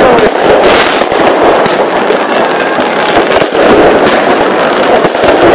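A fireworks display going off in a dense, unbroken barrage of bangs and crackles, very loud.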